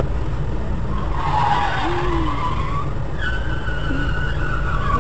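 Steady low rumble of a car idling in traffic, heard through a dash cam inside the cabin. Over it a high squeal rises about a second in, and a steady high-pitched squeal holds from about three seconds in.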